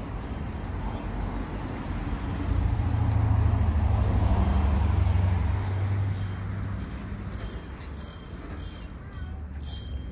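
Street traffic: a motor vehicle's engine rumbles past, swelling from a few seconds in and fading away after about six seconds.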